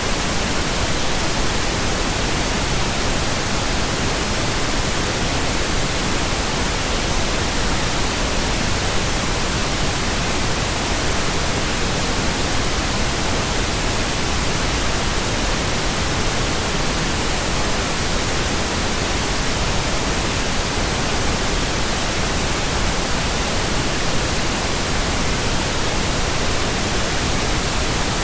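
Steady pink noise: a continuous, even hiss across the whole range with no changes.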